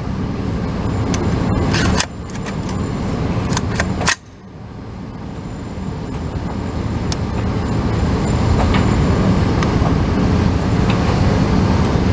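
Two rifle shots from a Ruger 5.56 rifle, about two seconds apart, the first about two seconds in. Under them is a steady low rumble that dips right after each shot and then builds back up. A few much fainter cracks come later.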